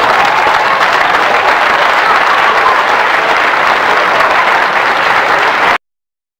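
Loud audience applause that starts abruptly and is cut off suddenly near the end.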